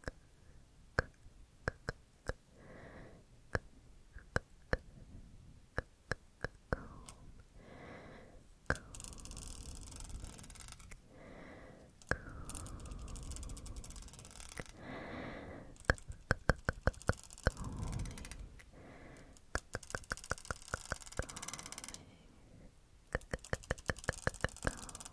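A comb drawn and tapped across the microphone: sharp clicks of the comb's teeth, sometimes in quick runs, alternating with stretches of scratchy scraping.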